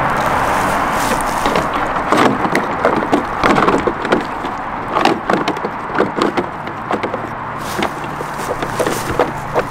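Irregular sharp plastic clicks and knocks as the hard body shell of a Traxxas TRX-4 Defender RC crawler is handled and pressed down onto its chassis, starting about a second and a half in.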